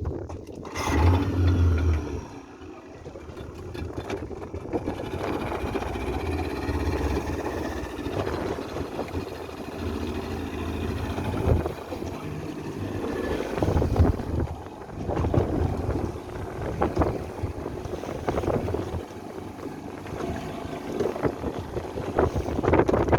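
A boat's motor running steadily, with gusts of wind buffeting the microphone; the loudest gust comes about a second in.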